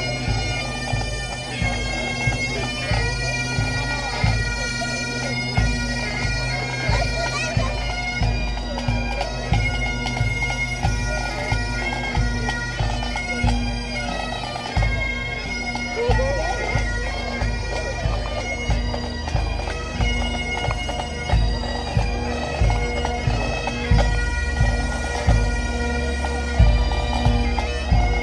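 Bagpipes playing a tune over their steady drone, with a regular low drum beat underneath.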